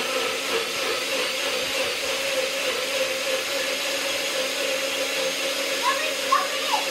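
NutriBullet personal blender running steadily, its motor whining at an even pitch as it blends fruit and water.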